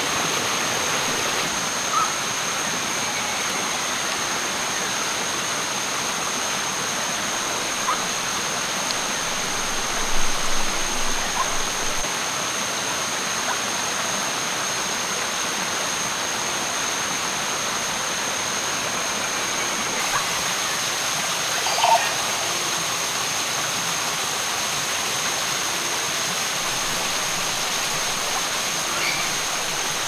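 Rainforest stream rushing steadily over rocks, with a steady high-pitched tone above the water and a few light knocks near the middle and again about two-thirds of the way through.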